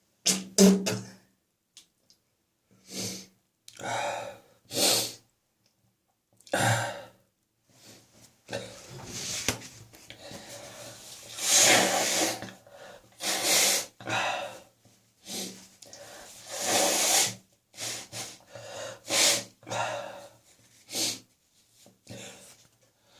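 A person coughing over and over in short, forceful fits, with loud breathing between them. The cough is brought on by coming into a warm house from cold outside air.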